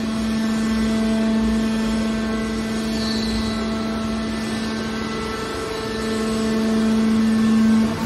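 Hydraulic scrap metal baler running: a steady electric-motor and hydraulic-pump hum with a strong low tone, loading up and getting louder over the last couple of seconds as the ram pushes the compressed bale out, then the hum drops off abruptly at the very end.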